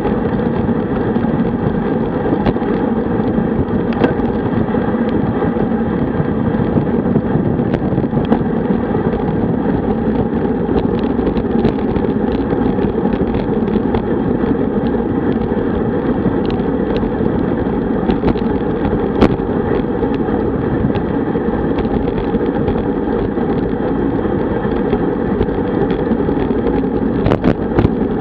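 Steady wind rush over a bicycle-mounted camera's microphone, with tyre and road noise, at about 45 km/h on a road bike, and a few sharp clicks scattered through.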